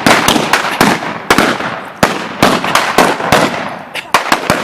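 Rapid, irregular gunshots from several guns firing blanks in a staged Old West shootout, about a dozen cracks, often two or three in quick succession, each with a short echo.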